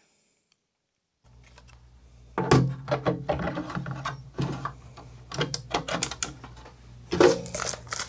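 Plastic NAS drive tray holding a 2.5-inch SSD clicking and rattling as it is slid into a drive bay of a Synology DS1621xs+, with irregular clicks and knocks and a louder clatter near the end. It starts about a second in, over a low steady hum.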